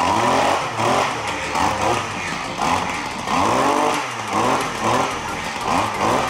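RedMax two-stroke engine on a stick edger, running and revved in repeated throttle blips about once a second, its pitch rising and falling with each. This is the test run of the engine just swapped onto the edger.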